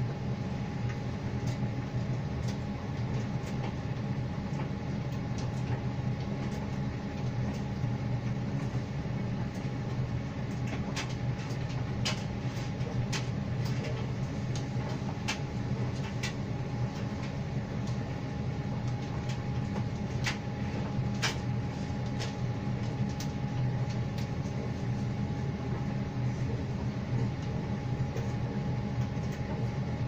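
Electrolux tumble dryer running in the last minutes of its drying cycle: a steady low hum from the motor and turning drum with a faint steady whine above it. Scattered light clicks from the tumbling load come mostly in the middle stretch.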